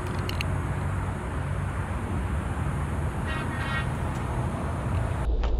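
Steady low rumble of outdoor background noise with no speech, with a faint, brief high tone about three and a half seconds in.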